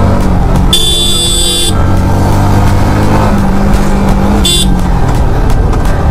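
Motorcycle riding at road speed, with steady engine drone and wind rush. A vehicle horn sounds twice over it: a long blast about a second in and a short toot near the end.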